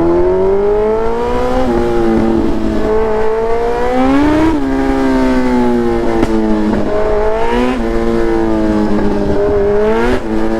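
Kawasaki 900 motorcycle engine pulling away and riding on. Its pitch climbs, drops at a gear change about a second and a half in, climbs again to a second drop around four and a half seconds, then rises and falls in smaller steps with the throttle.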